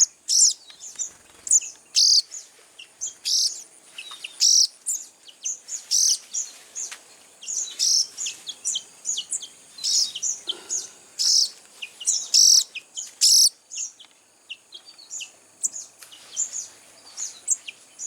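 Young sogon birds giving shrill begging chirps, one after another about once or twice a second, as they are hand-fed. Near the end the loud chirps stop and only fainter, scattered chirps remain.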